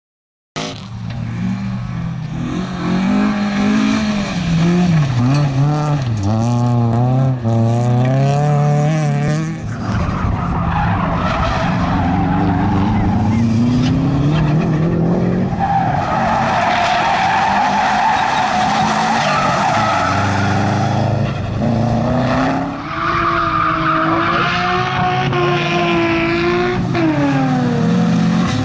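Rally cars' engines, among them Subaru Impreza flat-fours, revving hard. The pitch climbs and drops again and again through gear changes and throttle lifts as the cars slide through corners. The sound cuts in about half a second in.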